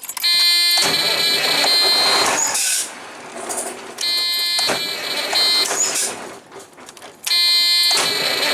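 Truck starter motor cranking the engine in three bursts of about two seconds each, every burst opening with a high whine before the cranking noise fills in. A load test of the starter after cleaning bad ground connections, and the cranking sounds better: the bad ground was likely the cause of the hard starting.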